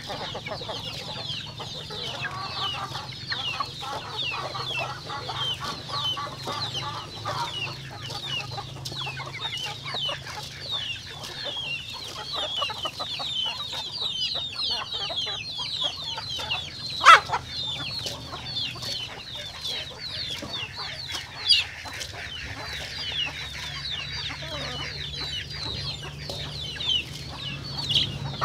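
A flock of chickens calling and clucking, with a constant dense high chirping. A single loud, sharp call stands out about 17 seconds in, and another near 21 seconds.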